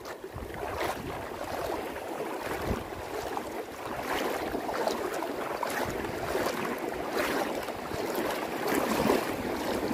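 Small waves lapping and splashing in shallow water, a steady wash broken by many light splashes.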